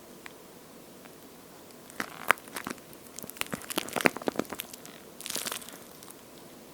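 A water-filled toast-shaped squishy toy being squeezed and handled: about two seconds in, a run of sharp crackling, crinkling clicks lasting a couple of seconds, then one short rustle.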